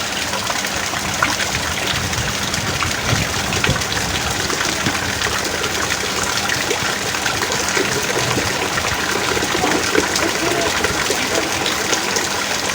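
Heavy rain falling steadily: a dense, even wash of water with many small drops splashing close by.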